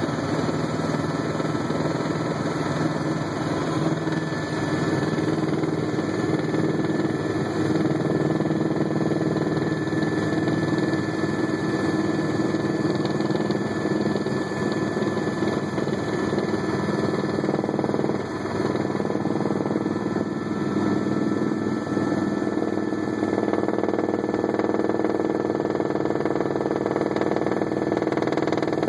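Helicopter engine and rotor noise heard from inside the cabin: a steady drone with a faint high whine.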